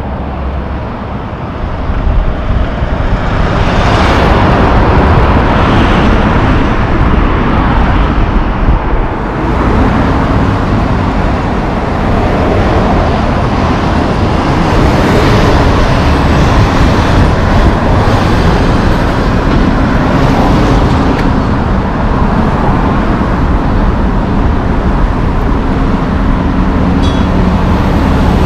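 Loud city street traffic with heavy diesel trucks passing close by: engines running and tyres on the road, swelling about two seconds in and staying loud.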